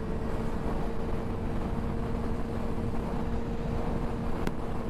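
Suzuki GSX-R sportbike engine running at a steady highway cruise, its engine note holding constant under wind and road noise. One brief click about four and a half seconds in.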